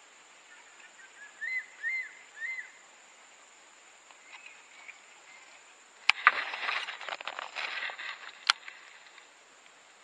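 A bird gives three short chirps about half a second apart. A few seconds later a Shimano Metanium baitcasting reel is cast: a sharp click, a couple of seconds of buzzing rattle as the spool pays out line, and another sharp click as it re-engages.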